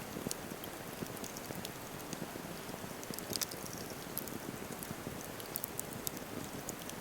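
Wood campfire burning, a steady rushing of flames with irregular sharp crackles and pops from the burning wood, a cluster of them about halfway through.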